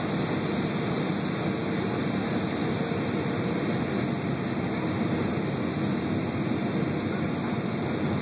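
Steady roar of jet engine and airflow noise heard inside an airliner cabin on approach to landing.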